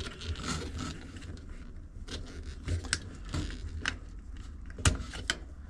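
Scattered small plastic clicks and taps as hands work a wiring-harness plug loose inside a washing machine, with one sharper click near the end.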